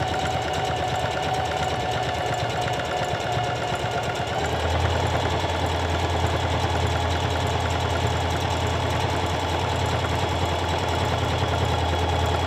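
SINGER CP6350M electric sewing machine running steadily as it sews a honeycomb stitch: a motor whine over rapid needle strokes. The machine's note shifts and deepens about four seconds in.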